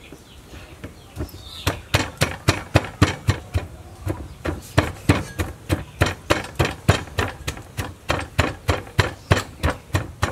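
Wooden pestle pounding galangal and garlic in a clay mortar: a quick, steady run of dull knocks, about three strokes a second, starting about a second and a half in.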